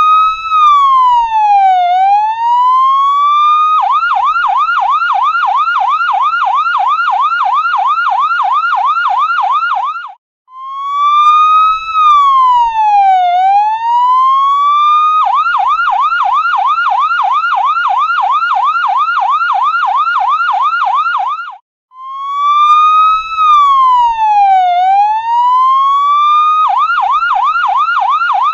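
Electronic ambulance siren switching between a slow wail, which rises, falls and rises again over about four seconds, and a fast yelp at about four warbles a second. The cycle repeats about every eleven and a half seconds, with a brief cut-out twice where it loops.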